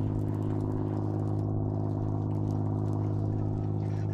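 Small boat's outboard motor idling with a steady, even hum that does not change in pitch or loudness.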